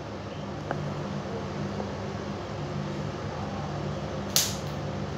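Steady low hum and hiss of room noise, with a faint tick just under a second in and one short scrape about four and a half seconds in as a pry tool works at the edge of a glued-in smartphone battery.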